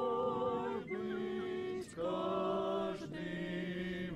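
Voices singing a cappella in harmony: slow, long-held notes that change together about once a second.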